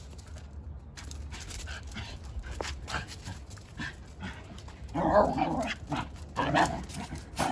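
Shiba Inu at play making short, loud vocal noises, two or three in a row starting about five seconds in, after a few seconds of light scuffling.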